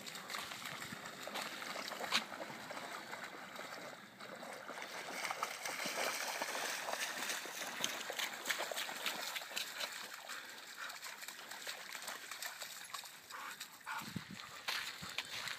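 Dogs wading and swimming through shallow pond water, with continual splashing and sloshing.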